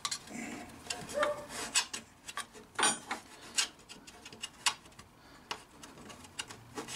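Irregular light clicks and rubbing, about one click a second, the loudest about three seconds in.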